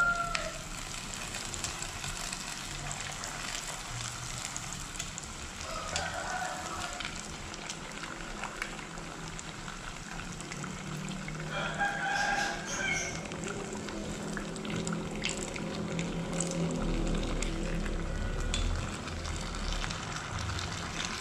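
Tapioca-filled lumpia wrappers deep-frying in hot oil in a small wok: a steady bubbling sizzle, with a few light clicks of metal tongs turning them in the oil.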